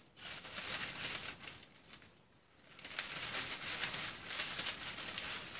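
Honeycomb kraft paper wrapping crackling and rustling as it is pulled apart by hand, with a short lull about two seconds in.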